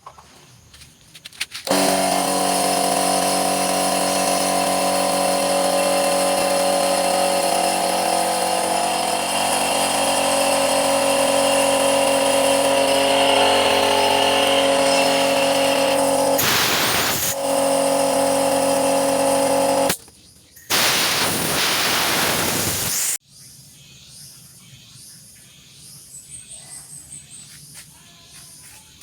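Rebuilt 3/4 hp electric piston air compressor starting up and running steadily with a strong hum. After the motor stops, a loud rush of released air lasts about two seconds.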